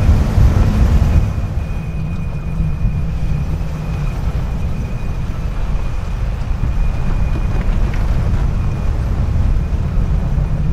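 SUV driving slowly over a dirt track and onto slickrock: a steady low rumble of engine and tyres on rough ground.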